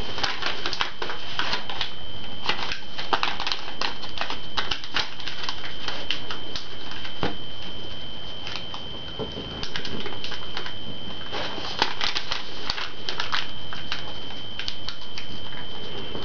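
Sheet of origami paper being folded and creased by hand: dense, irregular crackling and rustling, with a steady high-pitched whine underneath.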